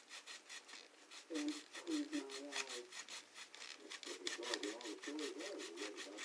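Small old hand saw cutting through the hard plastic of a Marx toy train car, in quick, even back-and-forth strokes, several a second.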